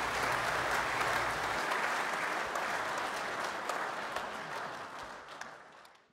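Applause, a dense patter of many hands clapping, fading away near the end.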